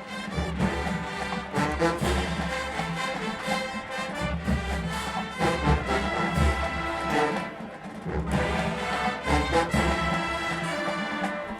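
HBCU marching band playing, brass over drums, with a brief drop in volume about eight seconds in.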